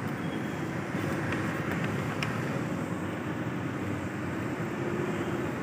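Steady city traffic noise from cars on the nearby road, with a faint engine hum that rises slightly near the end.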